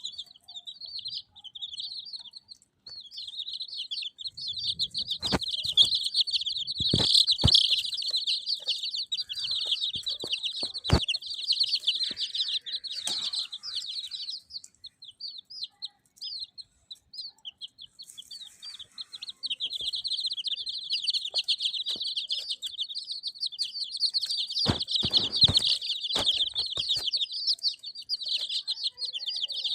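A group of chicks peeping continuously in many rapid, high-pitched calls, thinning out briefly about halfway through, with a few sharp knocks.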